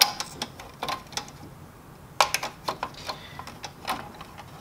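Irregular plastic clicks and knocks as a black plastic cover plate is fitted back onto the metal roller frame of a Kyocera PF-740 paper feeder: a few sharp clicks at first, a short pause, then a quick cluster of clicks about two seconds in.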